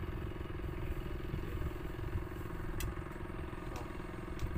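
A small engine running steadily with a constant hum over low rumble, and a few faint clicks.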